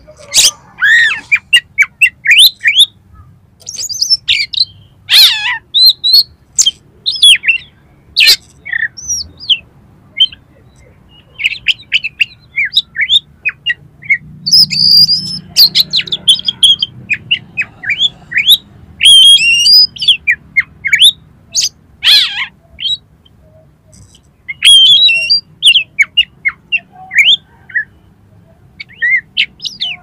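Oriental magpie-robin singing a long, varied song: a rapid run of short whistles, chirps and harsh notes with quick pitch glides, broken by brief pauses.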